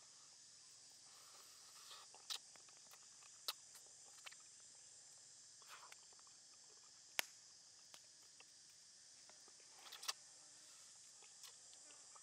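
Sharp crunches and clicks of a person biting and chewing fried salmon bone and fin, a few separate crunches standing out about two, three and a half, seven and ten seconds in. Between them a faint steady high hiss.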